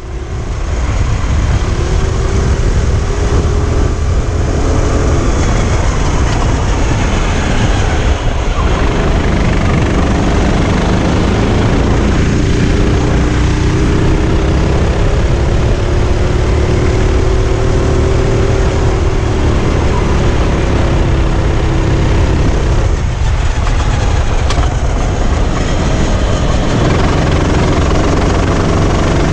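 Sodi RT8 rental kart's four-stroke engine running hard on track, heard from on board, its pitch slowly rising and falling with the throttle through the lap, over a heavy low rumble and vibration.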